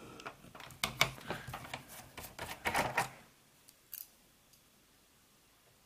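Sharp, irregular clicks and small knocks of plastic and metal parts of an all-in-one PC being worked loose by hand while its rear I/O panel is removed. They stop about three seconds in, leaving only two faint ticks.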